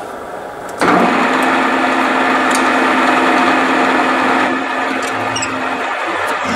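Vertical milling machine taking a facing cut on a cast steam-locomotive cylinder block in the vise. The machine noise starts suddenly about a second in as a steady hum with a whine, and eases a little after about four and a half seconds.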